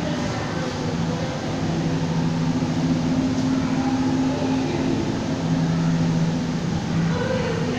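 A steady machine hum with two low droning tones over a constant rushing noise.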